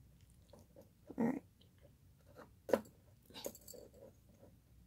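Quiet, scattered clicks and rustles of thin craft wire being twisted by hand around a glass bottle's neck, with a couple of sharper clicks past the middle.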